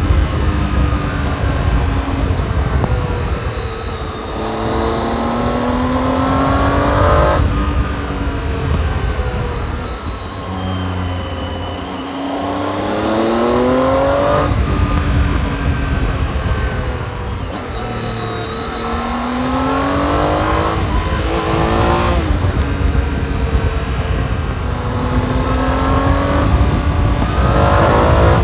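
Triumph Tiger 800 XRx's 800 cc inline-three engine, on its stock exhaust, accelerating under load. Its pitch climbs and then drops sharply at each upshift, four times. Wind rushes over a helmet-mounted microphone.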